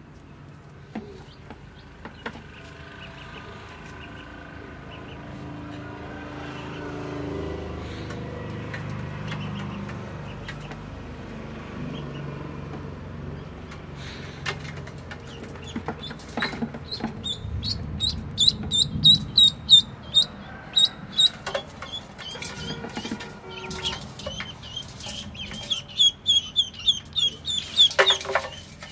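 Ducklings peeping: many short, high, rapidly repeated calls that begin about halfway through and grow louder, with scuffling knocks among them and one long falling call near the end. A steady low hum runs under the first half.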